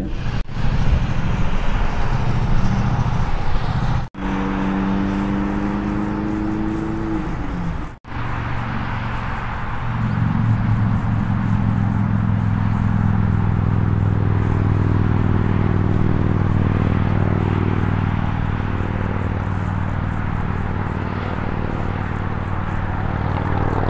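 Road noise from inside a moving car, broken by two abrupt edits. This is followed by a steady low engine drone with an even hum that holds to the end.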